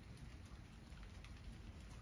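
Faint outdoor ambience: a steady low rumble and hiss with scattered light ticks.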